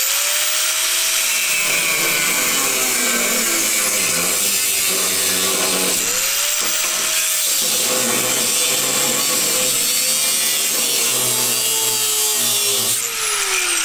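Cutoff wheel grinding through a 1-5/8 in chromoly roll-cage tube, with a steady loud cutting noise over the motor's whine. The motor spins up at the start, eases off and spins back up about six seconds in, and winds down as the cut stops near the end.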